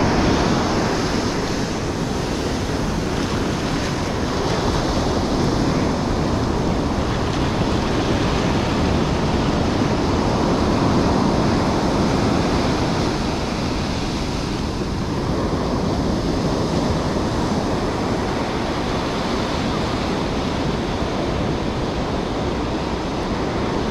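Ocean surf breaking and washing up a sandy beach as a steady roar, with wind buffeting the microphone.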